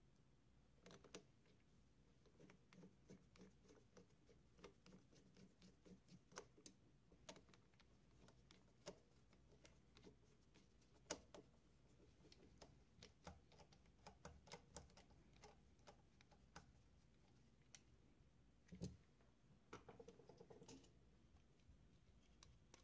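Faint, scattered clicks and taps of a screwdriver and fingers working on the metal chassis of a Tascam 464's cassette loading mechanism, with one duller knock late on.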